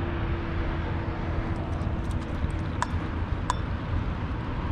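Steady low rumble of distant road traffic, with a faint steady drone that fades out about halfway through and two short, sharp ticks a little past the middle.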